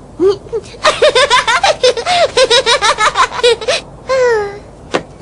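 A cartoon character's high-pitched voice laughing in rapid, choppy bursts for about three seconds, followed by a single falling cry and a sharp click near the end.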